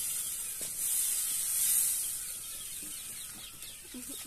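Roti hissing on a hot iron tawa over a wood fire as it is pressed down with a cloth, steam escaping. The high hiss is strongest early and eases off toward the end.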